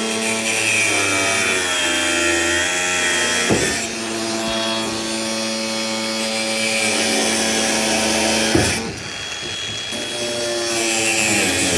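A power saw running and cutting, its motor whine wavering and dipping in pitch as it takes load, with two sharp knocks, one about a third of the way in and one near the end.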